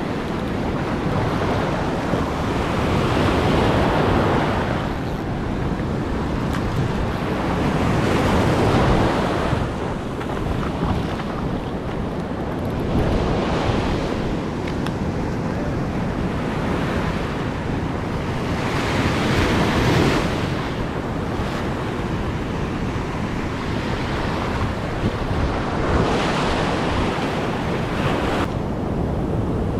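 Ocean surf breaking, the wash swelling louder every several seconds as waves roll in, with wind buffeting the microphone as a steady low rumble.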